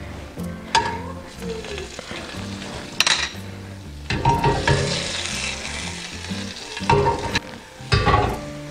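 Butter sizzling as it melts in a hot non-stick skillet, with a sharp tap about three seconds in as it goes into the pan and spoon clinks against the bowl and pan before and after.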